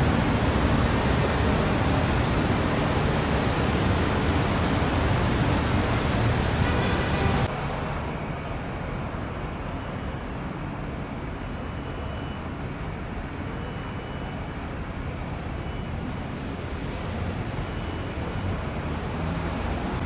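Steady road traffic noise from passing cars. A loud, hissy wash for the first seven seconds drops abruptly to a quieter rumble.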